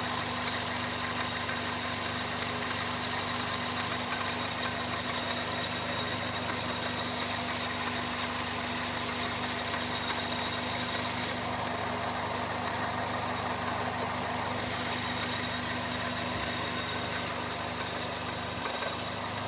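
Toyota 1.8L four-cylinder engine of a 2001 Chevy Prism idling steadily, with a steady hum and no change in idle. The engine is running lean (trouble code P0171), which is put down to restricted fuel injectors.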